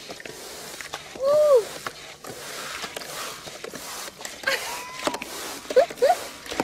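A woman's short high-pitched cry about a second in, with more brief cries near the end, over a steady hiss.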